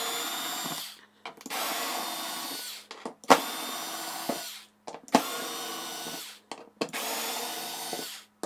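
Cordless electric screwdriver running in five short runs of about a second each, backing screws out one after another; the motor whine holds a steady pitch through each run, with a sharp click between some of them.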